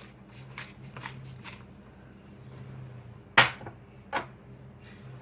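Wooden pepper mill grinding: a quick run of dry crunching clicks over the first second and a half. Then two sharp knocks, about three and a half and four seconds in, the first the loudest, over a low steady hum.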